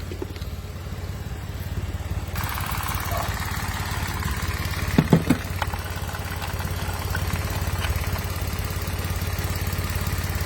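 Mitsubishi Mirage engine idling steadily after a weak-battery no-start. A brighter hiss joins about two seconds in, and a short voice is heard about five seconds in.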